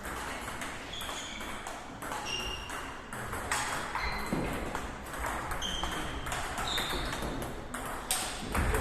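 Table tennis balls clicking off bats and pinging off tables in a rally, a quick irregular run of sharp clicks and short high pings.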